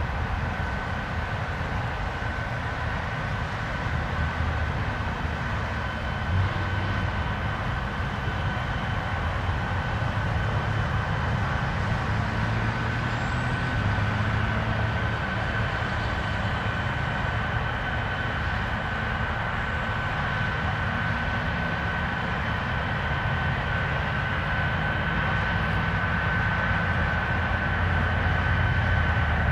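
Boeing 777-300ER's GE90 turbofan engines running steadily with a thin high whine over a broad rumble, growing slightly louder near the end.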